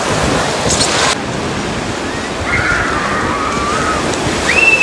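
Sea surf washing in the shallows, which cuts off abruptly about a second in to a quieter, duller beach ambience. Near the end comes a short high call that holds and then falls away.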